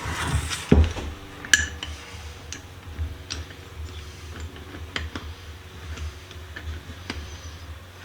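Metal parts of a cast-iron clamp-on vise clinking and tapping as it is reassembled: a heavier knock about a second in, then scattered sharp clicks every second or so. A steady low hum runs underneath.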